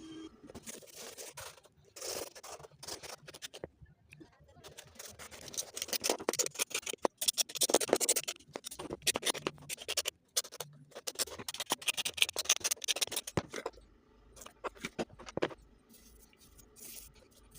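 Hand work on a shoe sole: irregular scratching and scraping strokes, some quick and some drawn out, coming in clusters with short pauses between them.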